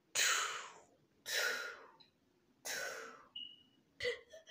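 Three heavy, breathy exhalations about a second and a half apart, each trailing off.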